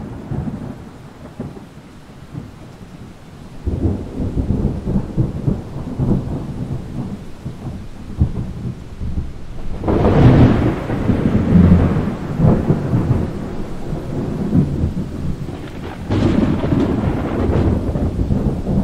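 Thunder rumbling in long rolls over a steady wash of rain. It swells about four seconds in, peaks with a loud crackling crash about ten seconds in, and swells again near the end.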